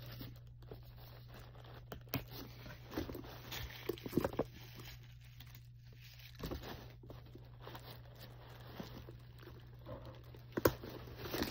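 Faint rustling and scattered light clicks as a leather handbag and its shoulder strap are handled, with some crinkling of packing paper; a few sharper clicks near the end.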